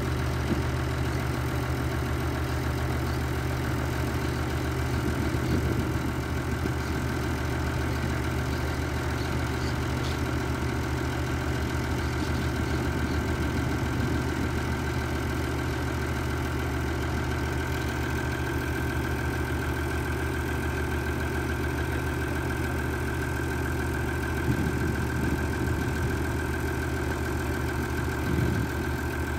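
Farm tractor engine idling steadily.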